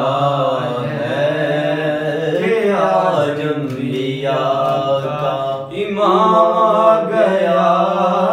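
A man reciting a naat, an unaccompanied devotional Urdu chant, in long melodic held notes with a short breath break about two-thirds of the way through.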